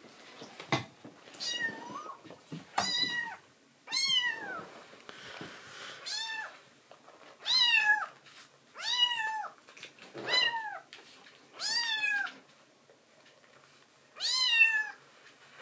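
A tuxedo kitten meowing about nine times, short high calls that each rise and fall in pitch, a second or two apart. The calls are the kitten begging to be fed milk.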